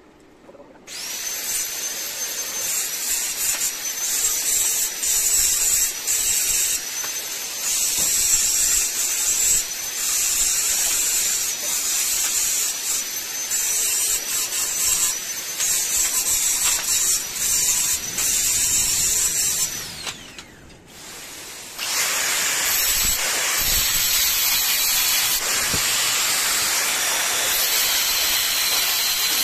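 A high-speed power tool running under load, with a high motor whine over a harsh hiss. It cuts out about 20 seconds in, and a steady hiss without the whine starts again about two seconds later.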